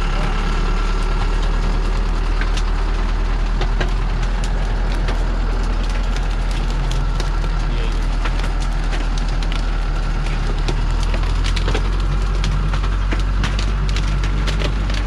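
Log-laden truck's diesel engine running steadily under load as it crawls through mud, with frequent sharp cracks and snaps of acacia branches and bark crushed under the tyres, thickest in the second half.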